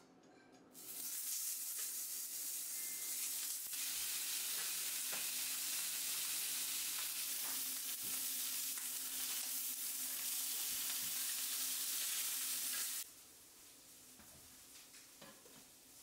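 Whole yellow croakers sizzling as they fry in hot oil in a nonstick frying pan. The sizzle starts about a second in, runs loud and even, and cuts off abruptly near the end.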